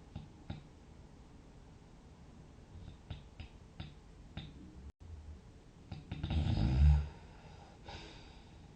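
A sleeping person snoring: faint breathing with a few small clicks, then one loud, low, vibrating snore about six seconds in, followed by a softer breath out.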